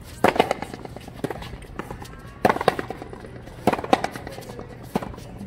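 Frontenis rally: a rubber ball struck by racquets and smacking off the frontón's front wall, sharp cracks that mostly come in quick pairs, every one to two seconds.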